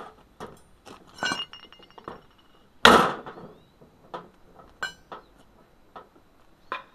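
Hammer strikes on metal, driving a stuck piston out of a refrigerant compressor's cylinder: a series of irregular, sharp metallic clinks, one ringing briefly a little over a second in and the heaviest blow about three seconds in.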